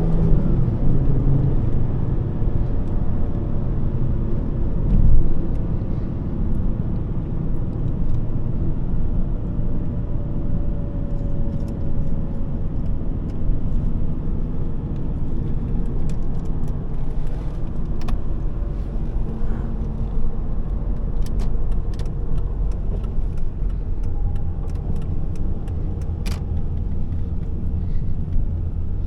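Volvo S40 II's 2.4-litre five-cylinder petrol engine and road noise while driving: a steady low rumble, with the engine note easing down in pitch near the start. There is a thump about five seconds in, and scattered light clicks later on.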